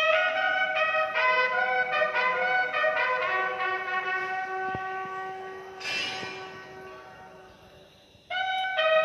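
Brass instruments, trumpet-like, playing a slow melody of held notes that starts suddenly, fades away and breaks off about eight seconds in before the next phrase comes in loudly. A brief noisy burst sounds about six seconds in.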